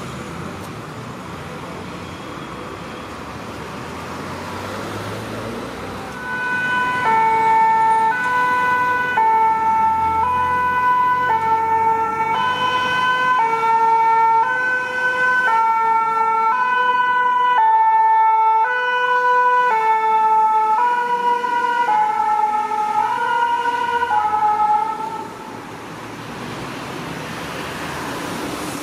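French fire service two-tone siren on a departing fire van, alternating between two notes. It starts about six seconds in over road-traffic noise, is the loudest sound, and cuts off abruptly a few seconds before the end.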